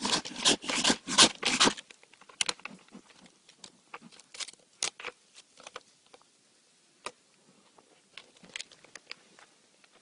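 Black bear's claws scratching and scraping on tree bark as it climbs: a fast, loud run of scratches in the first two seconds, then scattered scrapes and clicks as it reaches the top.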